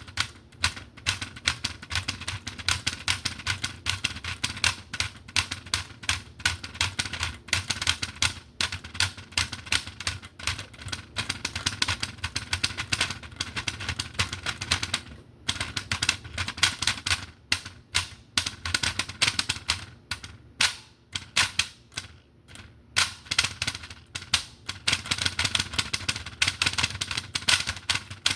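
Fast, uneven run of sharp clicking taps, many strokes a second, like typing. It breaks off briefly about fifteen seconds in and again a little past twenty seconds.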